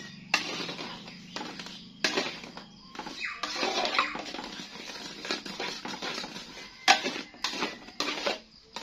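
A spoon scraping and knocking against an aluminium pan while stirring thick sago-flour and palm-sugar batter on the heat, with irregular scrapes and a few sharp clicks.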